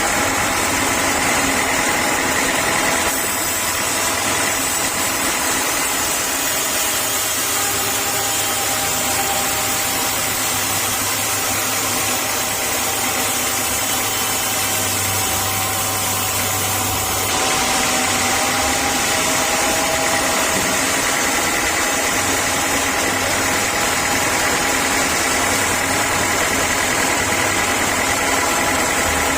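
Sawmill saw machinery running steadily, a constant mechanical hum with steady whining tones over a hiss. The tone shifts abruptly about 3 seconds in and again about 17 seconds in.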